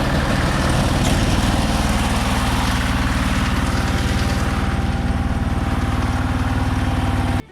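Konma MT-S411D harvester running steadily with its engine at a constant speed. The sound cuts off abruptly just before the end.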